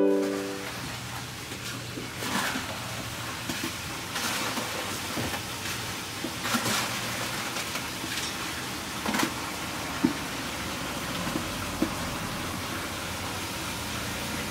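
Steady outdoor background noise with a low hum and a few faint knocks and clicks scattered through it. The tail of a piano tune dies away at the very start.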